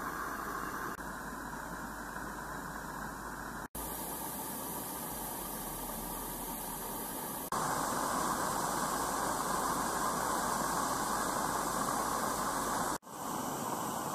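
Steady hiss of a Regner Konrad gas-fired live-steam garden-railway locomotive standing in steam. It cuts out briefly twice and grows louder about halfway through, as it is heard from close by the boiler fittings.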